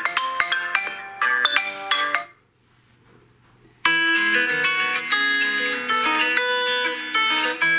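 Xiaomi Poco X3 NFC stock ringtones. A melody of quick, bright notes ends about two seconds in, and after a second and a half of silence the next ringtone starts, a melody of plucked, guitar-like notes.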